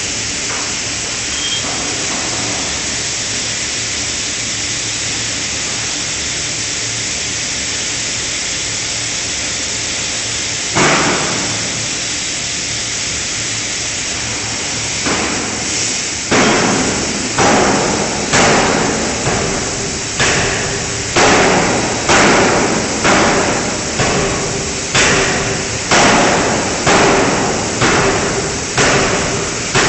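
5-ton fully hydraulic closed-die forging hammer striking connecting-rod forgings in the die: one blow about eleven seconds in, then from about fifteen seconds a regular run of blows about one a second, each with a short ring. A steady hiss runs beneath.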